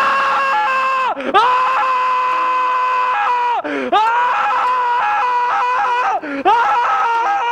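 A man screaming at the top of his voice in four long, held yells at a steady high pitch, with a brief break for breath between each.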